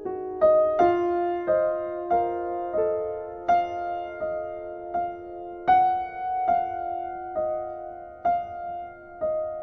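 Background piano music: a slow melody of single notes and chords, each struck and left to ring and fade, about one every two-thirds of a second.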